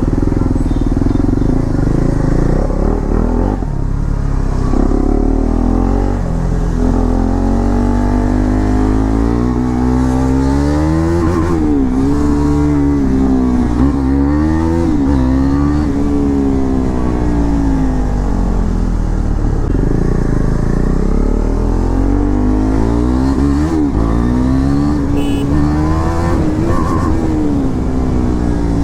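KTM Duke 390's single-cylinder engine running through a newly fitted SC-Project full-system exhaust, revved over and over so that the pitch rises and falls.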